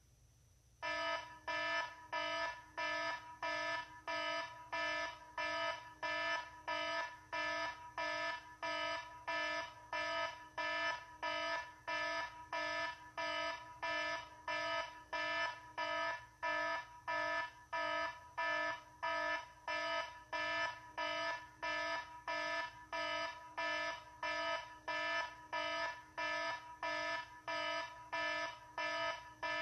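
Electronic alarm beeping in an even repeating pattern, a little over one beep a second. It starts about a second in and keeps going.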